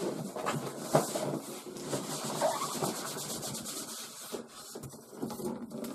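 Cardboard box being worked open by hand: a steady run of rustling and scraping of cardboard and packaging, with many small clicks.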